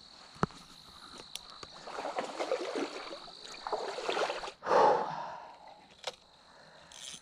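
Rustling of leaves and branches and scuffing footsteps as someone pushes through dense brush along a creek, with one louder brushing burst about five seconds in. A steady thin high insect whine runs underneath.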